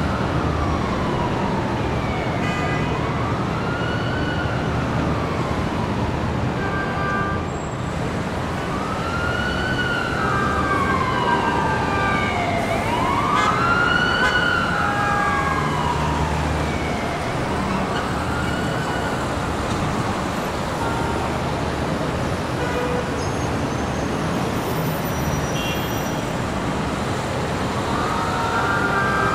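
Emergency vehicle siren in a slow wail, its pitch rising and falling over a few seconds per cycle, above steady city traffic. The wail drops out for several seconds late on and comes back near the end.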